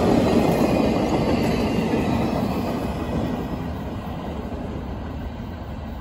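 The last cars of a freight train, a full-length dome passenger car and a flatcar, rolling past on steel rails with a steady wheel-and-rail rumble that fades as the end of the train moves away.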